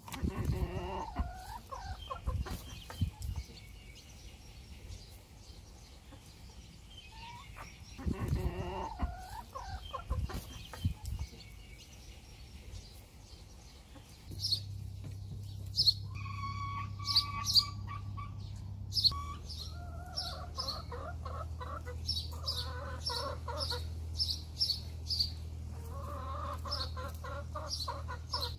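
Domestic hens clucking in short repeated calls while pecking at scattered wet grain on bark mulch, with sharp pecking taps. A steady low hum comes in about halfway through.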